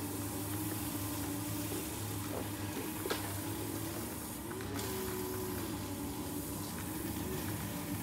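A few light clicks and knocks from the plastic parts of a baby high chair as its tray and seat are handled, over a steady background hum and hiss.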